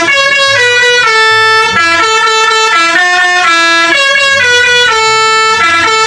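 Bus 'telolet' multi-tone air horn playing a tune: loud, steady horn notes stepping up and down in pitch, a new note every fraction of a second.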